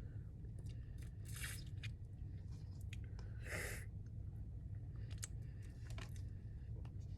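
Close-miked eating of Popeyes fried chicken: two loud crispy crunches, about a second and three and a half seconds in, then wet chewing with smaller crackles of the crust.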